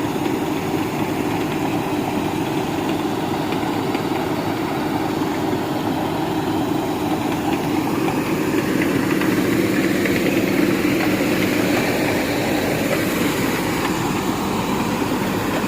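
Dasmesh 3100 combine harvester running steadily, its engine and machinery making a continuous, even drone.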